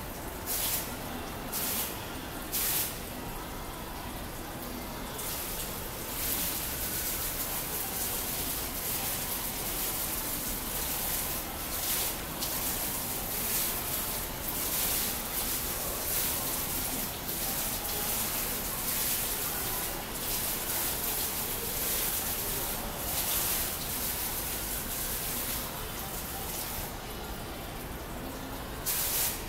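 Digital water-curtain fountain dropping curtains of water droplets that splash into the basin below, heard as a splashing hiss. It comes in a few short bursts at first, runs almost without a break from about six seconds in, and thins out again near the end as only a few single streams fall.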